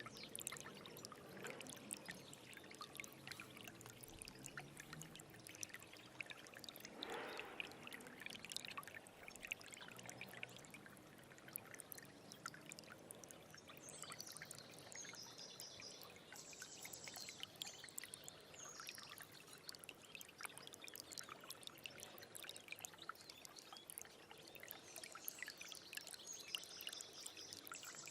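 A small stream running and trickling over stones, a steady faint babble of water with constant little splashes. High chirping calls come in about halfway through and again near the end.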